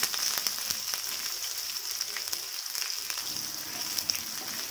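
Sliced onions with dried red chillies, bay leaves and cumin sizzling in hot mustard oil in a frying pan, stirred with a wooden spatula: a steady hiss with scattered crackles and the odd tap of the spatula.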